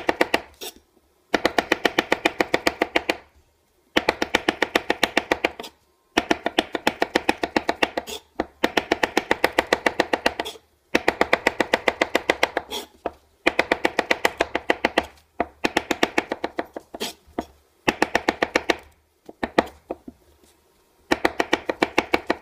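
Chef's knife chopping white mushrooms very fast on a wooden cutting board: rapid, even strikes about eight a second, in runs of about two seconds with short pauses between them.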